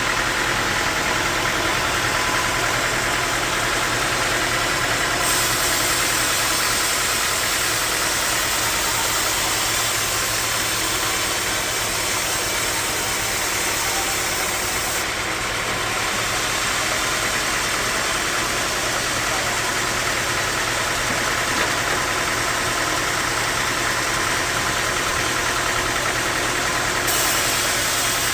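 Sawmill machinery running steadily: a constant mechanical drone and hiss, with the high part of the hiss changing a few times.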